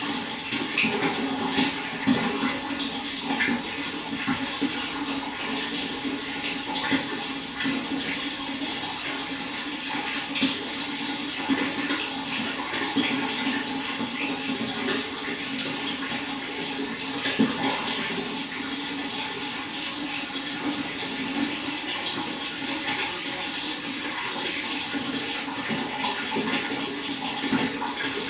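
Running water, a steady splashing trickle with small irregular splashes, over a low steady hum.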